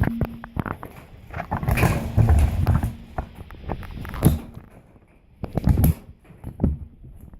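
Clanks, knocks and rattles of garage door hardware being handled and refitted to the door, with heavy thumps about two, four and six seconds in.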